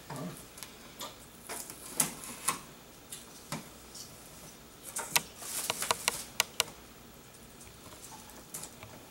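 Irregular sharp clicks and taps of hands working at the plastic housing of a canister vacuum, with a quick run of clicks about five to six and a half seconds in.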